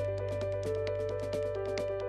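Background music: a fast ticking beat over a held low note and a short stepping melody.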